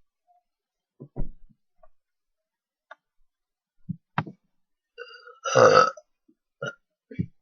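People burping after drinking Coke: a string of short burps, the longest and loudest one about two-thirds of the way through.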